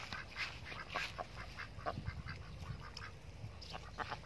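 Ducks quacking, a string of short, repeated calls.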